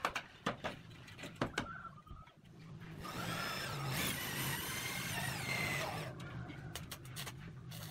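Electric drill running steadily for about three seconds, starting a little under three seconds in. Before it come a few scattered knocks, as of roof tiles and tools being handled.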